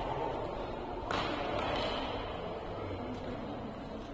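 Badminton racket hitting a shuttlecock: one sharp hit about a second in, then fainter hits.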